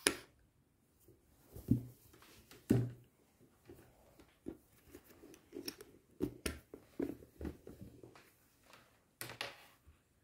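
Handling noise from a small plastic night lamp being turned over and having a charging cable plugged into its base: irregular soft knocks, taps and clicks against the table.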